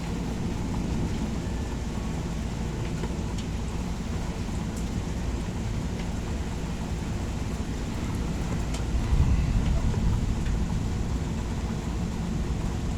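Thunderstorm: rain falling steadily under a low rumble of thunder that swells about nine seconds in.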